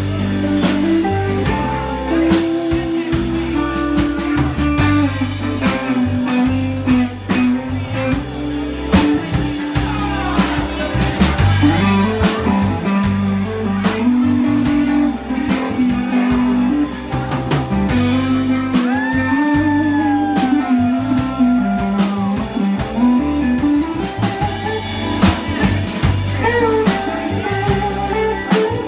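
Live blues band playing: electric guitars over bass guitar and drum kit. A lead line bends in pitch about ten seconds in and again about nineteen seconds in.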